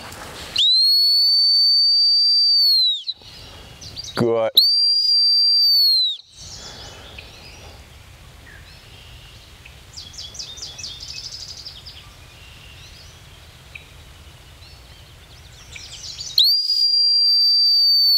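A dog-training whistle blown in three long, steady single-pitch blasts, the first about two and a half seconds, the second shorter a few seconds in, the third near the end. These are the stop whistle that halts a retriever at a distance, facing the handler.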